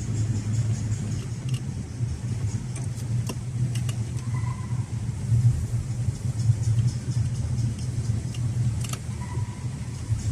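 Car being driven: a steady low hum with irregular sharp clicks and ticks over it, and a short faint whine twice. This is the abnormal running noise the owner is recording as evidence.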